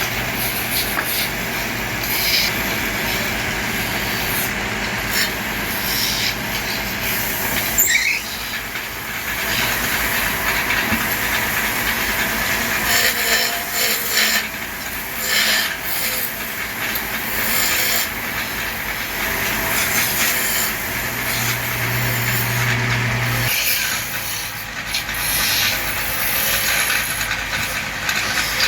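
Wood lathe turning, a chisel hissing and scraping against the spinning wood over a steady low motor hum.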